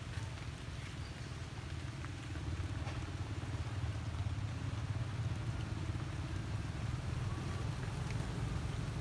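A motor vehicle's engine idling steadily as a low rumble that grows somewhat louder about two and a half seconds in.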